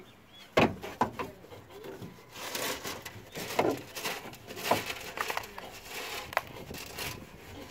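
A paintbrush scraping along the inside of a car door's sheet-metal shell, sweeping crumbs of shattered window glass, with irregular scratchy strokes and sharp clinks of the glass pieces.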